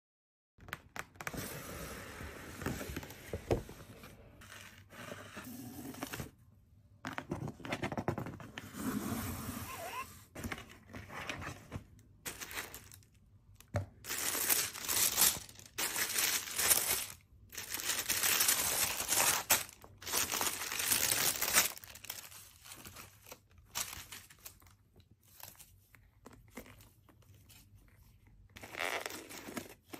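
Paper packaging being crinkled and torn open during an unboxing, in irregular bursts with short pauses, loudest through the middle stretch.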